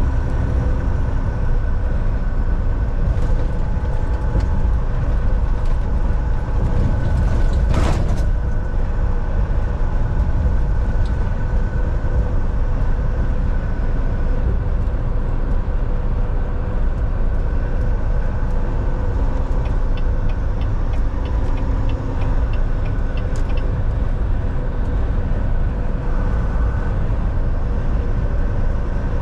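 Volvo semi-truck driving on the road: steady engine drone and road rumble, with a brief loud rush of noise about eight seconds in and a run of faint quick ticks about twenty seconds in.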